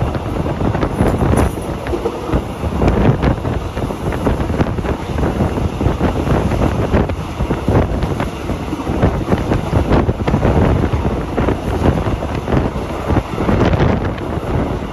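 Heavy wind buffeting on the microphone: a loud, rough, steady rush with irregular gusts.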